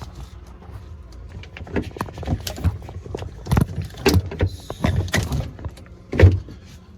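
Irregular clattering: a run of short knocks and clicks, densest in the middle, with the loudest knock a little after six seconds in.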